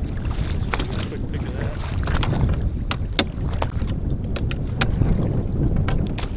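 Wind buffeting the microphone over an open lake, a steady low rumble, with scattered sharp knocks and clicks from the landed walleye and gear being handled on the boat's deck.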